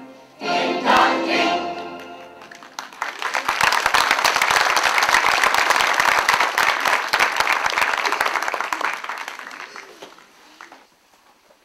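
A mixed choir of adults and children sings a last chord that ends about two seconds in, then an audience applauds for several seconds, the clapping dying away near the end.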